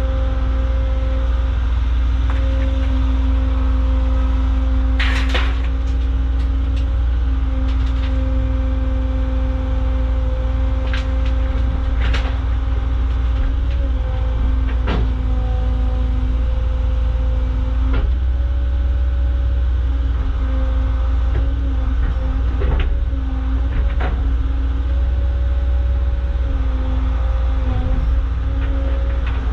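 Caterpillar excavator's diesel engine running steadily under load, with a hydraulic whine that shifts in pitch several times as the controls are worked. Rocks knock and clatter against the bucket about eight times as it digs and loads.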